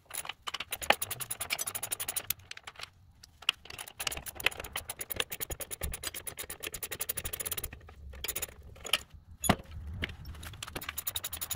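Socket ratchet clicking in several quick runs as half-inch nuts are spun off the transmission mounting bolts, with metallic clinks of the wrench and bolts in between.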